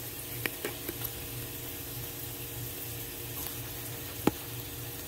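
Oil sizzling steadily in a frying pan of breaded zucchini fries, with a few light clicks about half a second in and one sharp click near the end.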